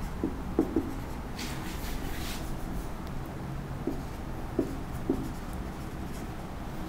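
Marker pen writing on a whiteboard: several short squeaks of the tip on the board, and a brief scratchy stroke about a second and a half in.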